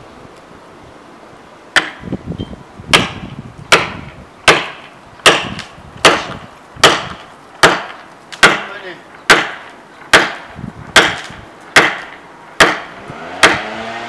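Steady blows of a short-handled hand tool on a dead tree's wooden trunk, about fifteen sharp strikes roughly every three-quarters of a second, starting about two seconds in.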